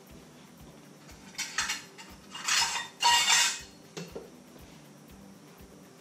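Kitchen handling sounds while more flour is being fetched: three short rustling, scraping noises close together, then a single light knock.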